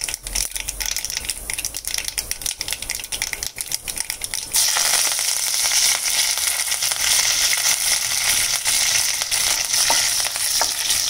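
Mustard seeds crackling and popping in hot sunflower oil in a kadai. About four and a half seconds in, dried red chillies and curry leaves hit the oil and a loud, steady sizzle takes over. Near the end a wooden spatula stirs the tempering.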